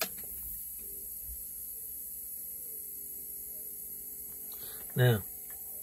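Steady electrical hum and hiss of background noise, with a click at the start. About five seconds in comes one short murmur from a person.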